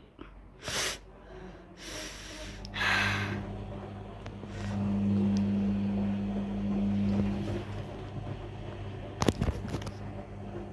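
Beko washing machine: two brief hisses, then a steady low hum that starts about three seconds in and swells in the middle. A couple of sharp clicks come near the end.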